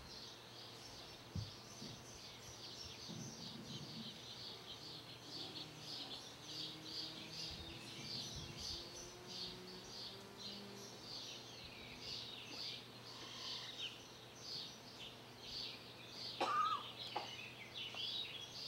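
Many small birds chirping continuously in a dense, faint chatter of short high chirps, over a low steady hum. A brief louder sound comes near the end.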